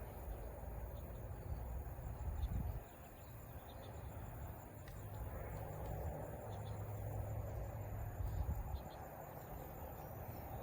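Steady outdoor insect chorus, crickets, over an uneven low rumble that swells twice.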